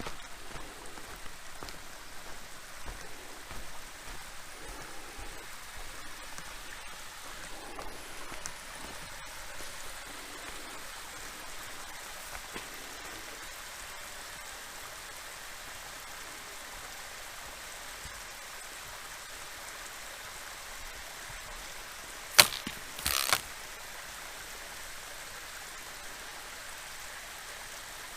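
Steady rushing of a small waterfall. Near the end, two sharp clicks come less than a second apart, louder than the water.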